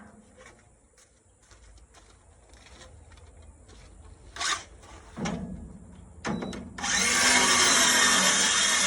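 A few light knocks and clatters, then about seven seconds in a power drill starts and runs steadily.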